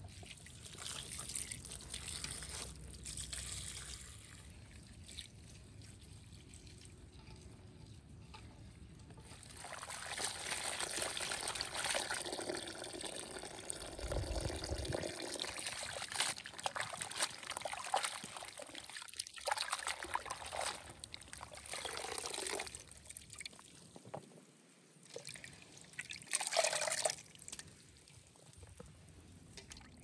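Water trickling from a clay jug into a metal pot and splashing as hands wash wild mushrooms in it. It comes in stretches: briefly near the start, longest through the middle, and once more loudly near the end.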